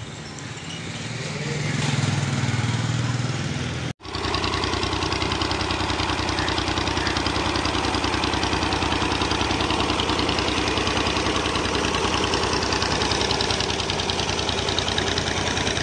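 A farm tractor's diesel engine running steadily at close range as it pulls a planter along the furrows, its firing an even, rapid throb. Before that, a rumble swells about two seconds in and breaks off suddenly about four seconds in.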